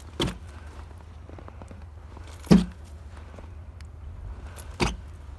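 Three sharp thumps, evenly spaced a little over two seconds apart, over a steady low rumble.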